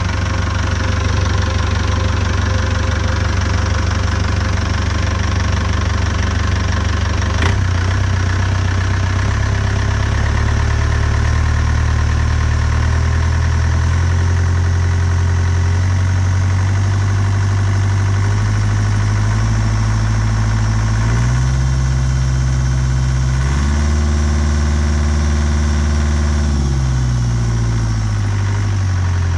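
Inboard marine diesel engine idling steadily. About three-quarters of the way through its note steps up for a few seconds, then drops back to idle. There is a single sharp click about a quarter of the way in.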